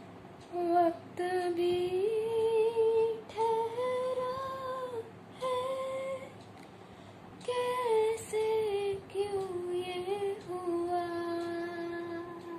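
A 13-year-old girl singing a slow melody without words, holding long notes in two phrases with a short pause about halfway.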